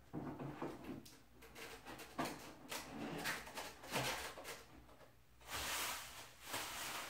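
Handling noises from a large scale model helicopter body: light knocks and taps as the tail boom is worked onto the fuselage, then a stretch of rustling plastic packing wrap a little past halfway.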